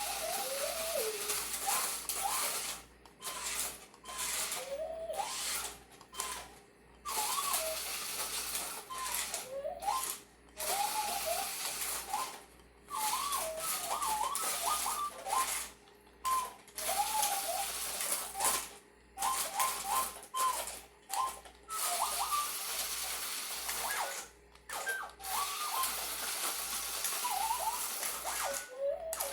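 Small Star Wars infrared RC droid toy driving about, its geared motor whirring in short stop-start bursts, with wavy warbling electronic chirps over it.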